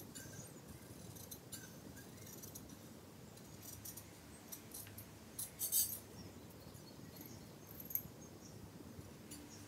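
Large tailoring scissors cutting through blouse fabric along a curved neckline: a series of short, crisp snips, loudest a little past halfway through and once more near the end.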